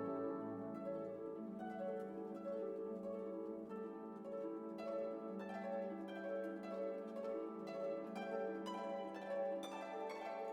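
Soft instrumental music: a string of plucked, harp-like notes over a held lower tone.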